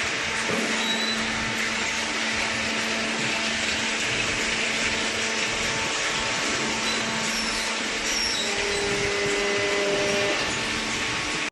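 Horizontal cardboard baler and its infeed conveyor running, a steady whirring machine noise with a faint steady hum. A slightly higher tone joins about eight seconds in, and the noise grows a little louder for a couple of seconds.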